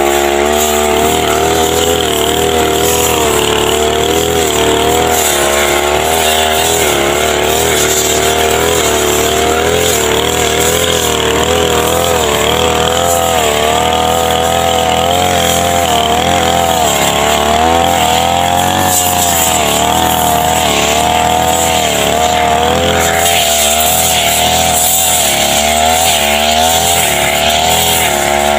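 Backpack brush cutter's small engine running at speed while it cuts tall grass, its pitch rising and falling over and over.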